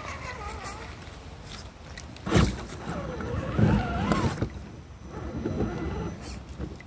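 RC rock crawler's electric motor and gears whining, rising and falling with the throttle, as it drives through shallow stream water. Its tyres splash, with a loud splash about two and a half seconds in and more churning around four seconds.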